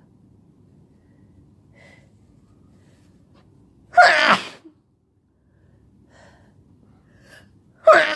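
A person with an illness sneezing hard twice, about four seconds apart, with faint breaths between the sneezes.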